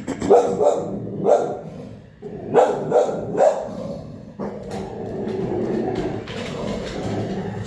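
Micro bully dog barking in short bursts, about six barks in the first three and a half seconds, then a steadier, continuous sound for the rest.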